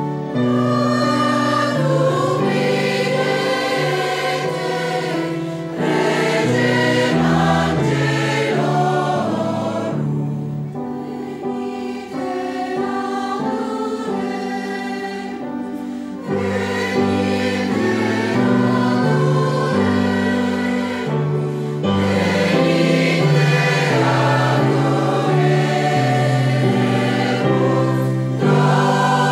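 Mixed choir of women's and men's voices singing in parts, with a softer passage in the middle before the full sound returns.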